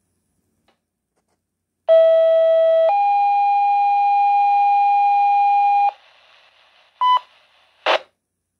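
Two-tone sequential fire pager alert tones coming through a Baofeng BF-F8HP Pro handheld radio's speaker: a lower steady tone for about a second, then a higher tone held about three seconds. These are the tones that set off fire and EMS crews' pagers ahead of a dispatch. A short beep and a brief burst of static follow near the end.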